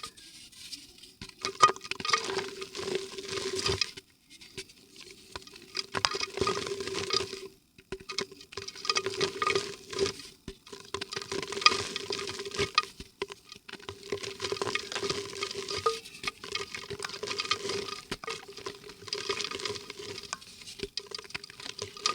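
Dry yellow mud softening and crumbling in water in a clay pot: a dense crackling patter that comes in bursts of a few seconds, with short pauses between them.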